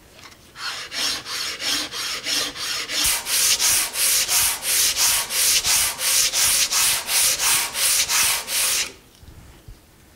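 The sole of a Harbor Freight No 33 bench plane being lapped flat on 60-grit aluminum oxide sandpaper: quick, even back-and-forth scraping strokes, about three a second, starting under a second in and stopping about nine seconds in.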